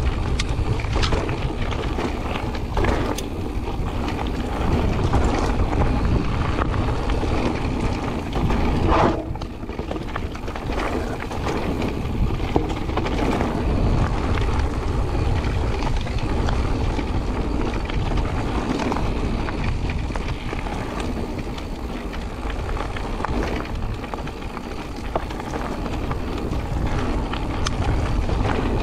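Wind rumbling on the microphone of a bike-mounted camera as an e-mountain bike rolls over a loose gravel trail, tyres crunching on stones, with frequent short knocks and rattles from the bike over bumps.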